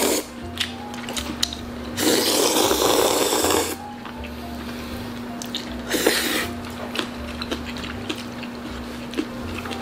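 Someone slurping jjajangmyeon noodles, one long loud slurp about two seconds in and a shorter one about six seconds in, with light clicks of eating utensils over soft background music.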